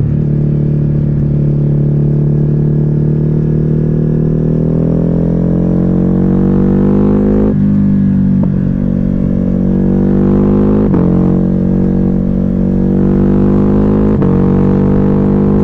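Ducati Hypermotard 950's L-twin engine running through a Termignoni exhaust with the dB killer removed, pulling up through the revs under acceleration. It upshifts three times: about halfway, about two-thirds in and near the end, each shift dropping the pitch before it climbs again.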